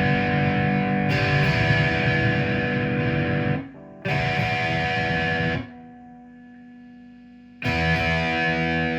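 G&L Legacy Tribute electric guitar with single-coil pickups, played through a Line 6 amp on high-gain distortion with the tone knob turned, strumming sustained distorted chords. A chord rings out, is struck again about four seconds in, then is cut off for about two seconds before a new chord rings near the end.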